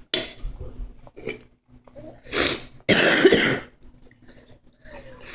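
A person coughing: a short sharp cough right at the start, then two loud harsh coughs about two and a half and three seconds in.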